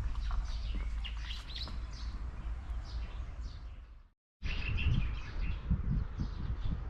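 Small songbirds chirping and twittering, many short calls overlapping, over a steady low rumble. The sound cuts out completely for a moment about four seconds in, then the chirping resumes.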